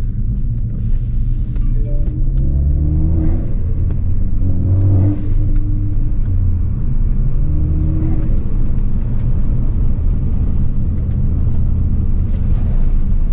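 Turbocharged Ford Focus ST engine accelerating through the gears, its revs rising and dropping several times. On lift-off there is turbo flutter, a chopping compressor surge heard through the open cold-air intake. It happens because the Turbosmart blow-off valve, routed to a true vacuum source, stays shut at low boost.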